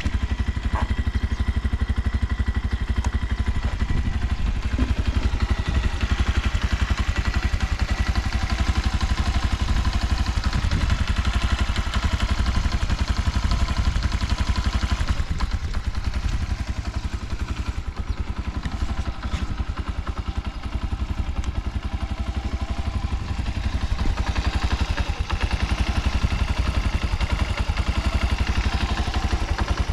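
Honda Solo AC17 50cc scooter's small single-cylinder engine running steadily, with a fast, even exhaust beat and no odd noises, a sign of an engine in good order.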